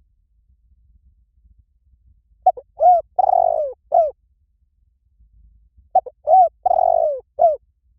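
Spotted dove cooing: two coo phrases about three and a half seconds apart. Each phrase is a few short notes that rise and fall, with one longer drawn-out note before the last.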